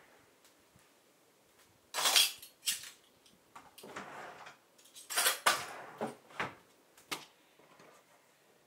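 A ceramic mug and plate clinking and clattering in several short bursts of knocks as they are picked up and handled.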